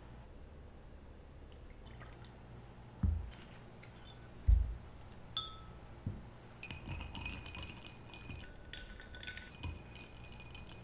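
Two dull knocks and a sharp clink of glass, then, from about seven seconds in, a bar spoon stirring ice in a glass mixing glass: the ice clinks lightly and the glass rings faintly.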